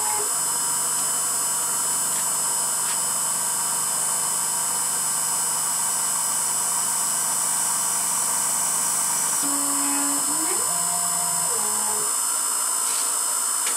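Emco F1 CNC milling machine running a spot-drilling cycle: the spindle motor runs steadily with a hum and high hiss. About ten seconds in, the axis stepper motors drive a rapid move, their tone rising, holding and falling back over about two seconds.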